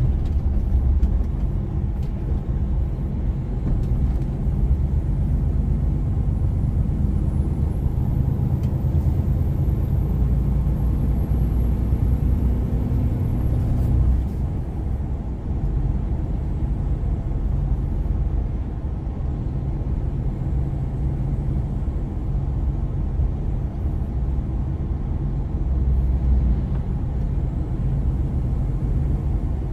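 Heavy truck driving on the road, heard from the cab: a steady low engine and road rumble.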